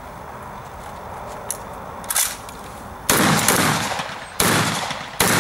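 Magazine-fed shotgun fired three times in quick succession, starting about three seconds in, the shots under a second and a half apart. Each loud blast is followed by a long echoing tail.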